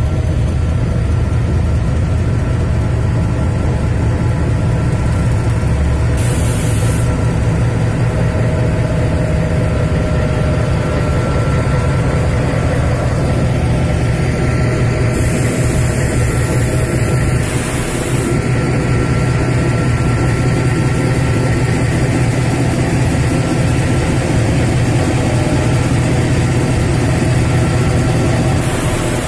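Narrow-gauge ZDM diesel locomotive's engine running steadily during slow shunting up to the coaches for coupling. Short hisses about six seconds in and again for a few seconds past the middle.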